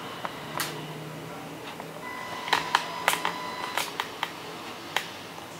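Buttons on a Shanny SN600N speedlite flashgun clicking as it is switched on and its controls pressed: a series of sharp clicks, with a faint steady high tone for about two seconds in the middle.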